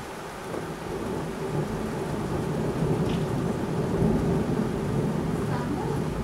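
Thunder rumbling in over steady rain. The low rumble builds about half a second in and rolls on, growing louder.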